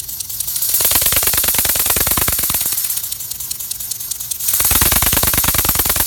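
Miniature V4 steam engine running, its valves and exhaust making a rapid, even chatter of puffs with a hiss. It gets louder about a second in and again at about four and a half seconds, as the throttle is worked.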